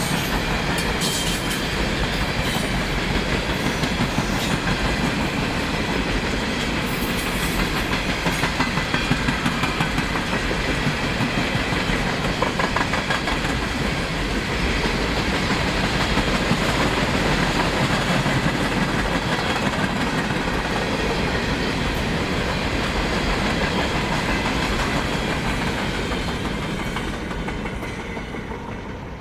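Train passing close by, its wheels clicking over the rail joints with a steady rush of rolling noise, fading away near the end as the last cars go by.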